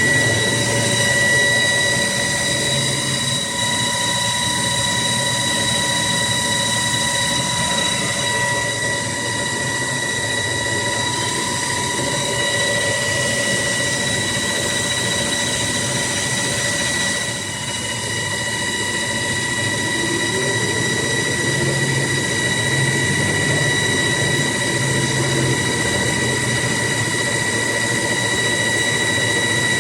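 ZMM LS600M cycle-controlled lathe running an automatic turning cycle: a steady machine whine with a constant high tone over a rough mechanical noise, easing off briefly a little past halfway.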